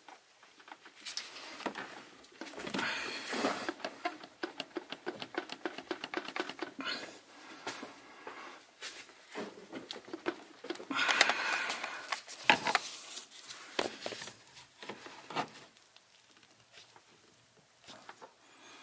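Rubber coolant hose being worked onto its metal pipe by hand and with a pry bar: irregular scraping, rubbing and clicking of rubber, metal and tool, with a run of quick clicks in the middle and quieter stretches between.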